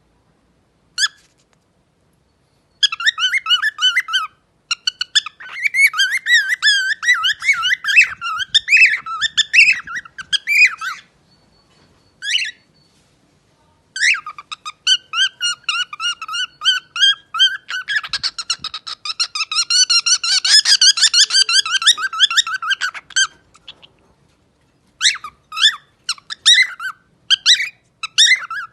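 Pet parrot singing: long runs of rapid, wavering whistled and warbled notes, broken by short pauses.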